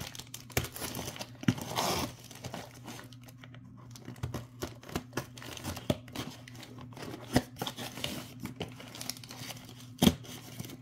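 A shipping package being torn open by hand, its wrapping crinkling, with scattered light clicks and knocks from handling it; a louder rustle comes about two seconds in.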